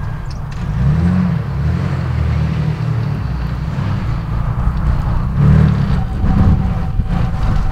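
Modified Jeep Wrangler off-roader's engine revving unevenly in bursts as it crawls over rocks and climbs a slope, the low engine note rising and falling, with its hardest revs a little past the middle.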